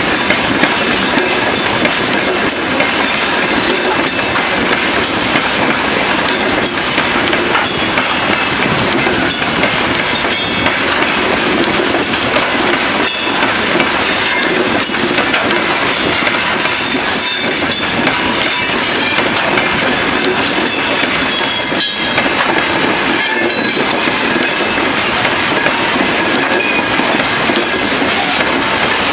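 A long freight train of open-top wagons rolling past at steady speed: a continuous rumble of steel wheels on rail, broken by irregular clicking and clatter as the wheels cross rail joints.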